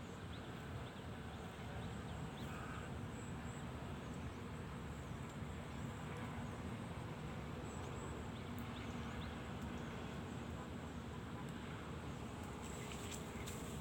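Steady outdoor ambience: a constant rumbling hiss with faint insects buzzing on and off at a high pitch and a few small bird chirps.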